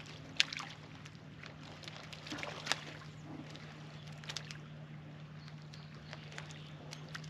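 Light water splashes and plops, the sharpest about half a second in and again near three seconds, over a steady low hum.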